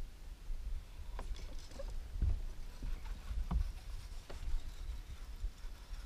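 A few scattered knocks and clicks on a bass boat's carpeted front deck as the angler shifts his feet and handles his rod and reel, over a steady low rumble.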